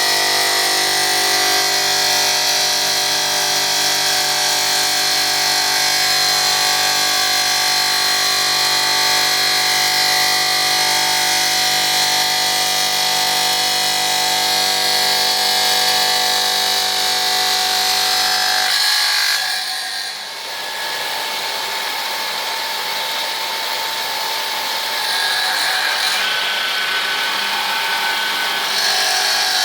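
Yaşık YMH-O 3000-300 automatic wet tile-cutting machine running, a steady motor hum with a high whine. A little over halfway through, the low hum cuts out and a thinner, higher hiss and whine carry on.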